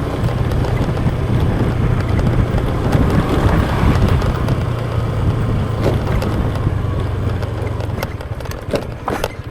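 Motorbike engine running steadily while riding, with wind and road noise; the engine note drops and turns rougher near the end.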